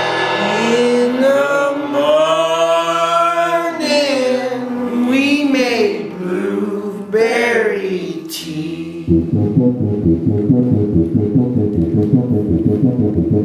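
Live folk band playing: a slow melody line with sliding pitch over acoustic guitar. About nine seconds in, the full band comes in with a fast, steady rhythm.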